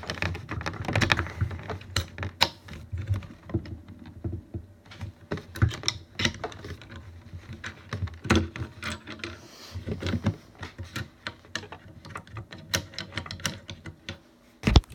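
Irregular light clicks and taps from small metal parts being handled, with a sharper knock near the end.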